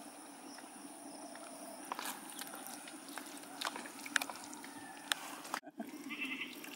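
Wet squelches and soft clicks from a hand rubbing masala paste into raw fish steaks in a plastic bucket, scattered and irregular over a steady outdoor background, with a brief break about five and a half seconds in.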